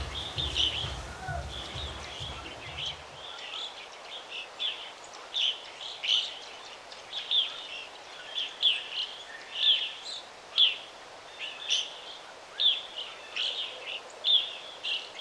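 A bird chirping over and over: short, high calls about once a second over a faint background hiss, with a low rumble for the first few seconds.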